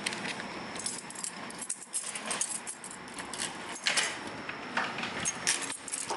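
Irregular sharp crackles and clicks of a clear plastic bag being handled, with a glass sliding door rattling as it is pulled open near the end.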